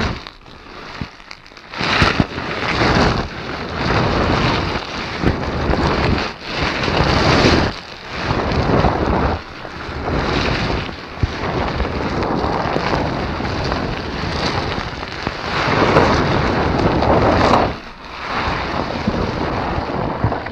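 Kaiju film sound effects for Guiron: a series of loud, noisy rushing and crashing bursts, each one to three seconds long, with one longer steady stretch after the middle.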